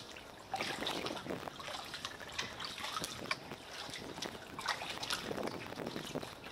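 Water trickling and dripping around a moving kayak, with irregular small splashes from paddle strokes.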